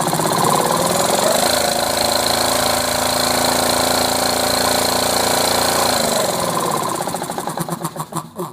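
Air compressor driven directly by a Motenergy ME1117 electric motor at 24 V, running with a rapid pulsing beat. About a second and a half in, the beat smooths into a steady hum as it reaches full speed. About six seconds in it slows, the pulses coming apart again, and it stops near the end.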